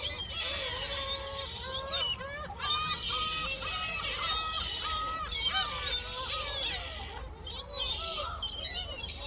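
A flock of gulls calling, many overlapping repeated calls, some rising and falling, as they squabble over food.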